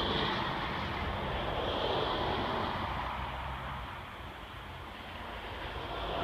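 Steady rumble and rushing noise of a moving vehicle, easing a little past the middle and swelling again near the end.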